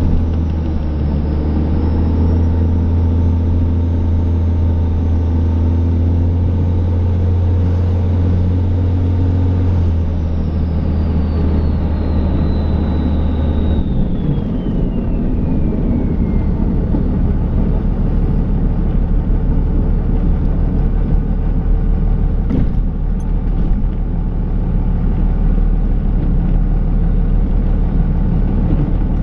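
Cummins diesel engine of a Dodge Ram pickup running steadily while plowing snow. Its note drops about halfway through, and a high whine falls in pitch over several seconds.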